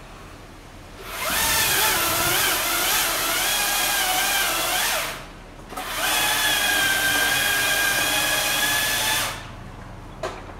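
Chainsaw cutting maple branches, run in two bursts of about four and three and a half seconds with a short break between; the motor falls silent between cuts rather than idling. A single short click near the end.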